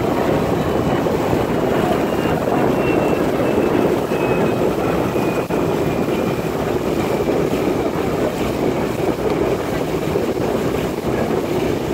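Outboard motor of a motor launch running steadily, with a faint high whine that sags slightly in pitch, mixed with wind on the microphone.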